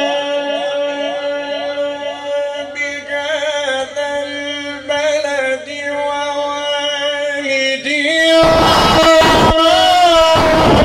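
A man reciting the Quran in the melodic mujawwad style, amplified through a microphone and loudspeaker, holding long ornamented notes with a wavering pitch. About eight seconds in, loud rough noise bursts twice over the voice.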